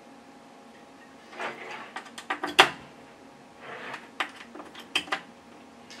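Quarter-inch jack plugs on RCA adapters being pushed into a mixing board's input jacks, with cable handling: a cluster of clicks and knocks starting about a second and a half in, the sharpest near the middle, then a second run of clicks a little later.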